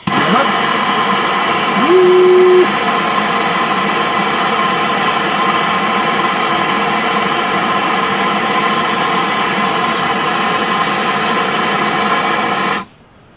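Power drill running steadily for about thirteen seconds, boring through the car's floor pan for a seat bolt, and stopping suddenly.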